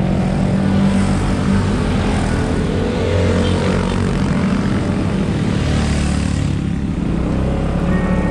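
Motor scooter engines running steadily at speed.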